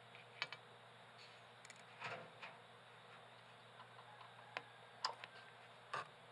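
Faint, scattered sharp clicks and light taps, about five of them spread over several seconds, against near silence.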